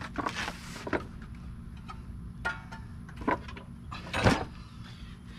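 Handling noise from a new Predator 459cc engine being turned around by hand on flattened cardboard: a few scattered knocks and scrapes, with the loudest thump a little over four seconds in. A steady low rumble runs underneath.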